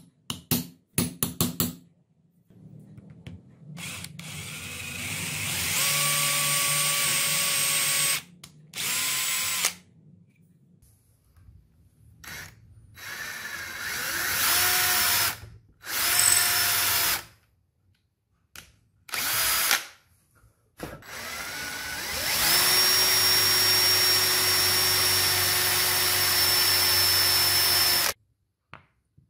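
A few quick taps, then an electric drill boring into a hardwood handle block and a brass guard piece in several separate runs. Each run begins with the motor winding up to a steady whine, and the longest run comes near the end.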